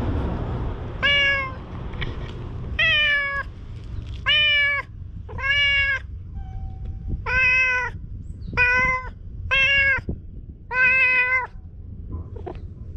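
A talkative stray tabby cat meowing eight times in a row, each a short call of about half a second, spaced roughly a second apart, over a steady low rumble.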